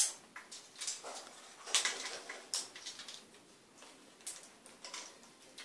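African grey parrots working on nuts with their beaks: about half a dozen sharp clicks and cracks, spread unevenly with quiet gaps between.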